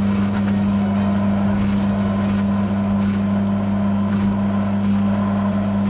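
Electric drill motor running at a steady speed with a constant hum while its bit bores into a small metal part.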